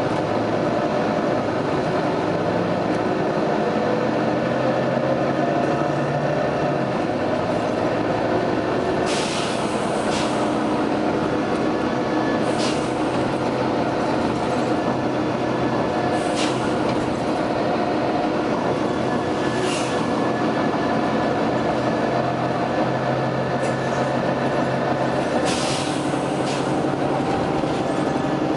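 Volvo B9TL double-decker bus running with a steady engine and drivetrain drone. About five short hisses of compressed air from its air system break in over it.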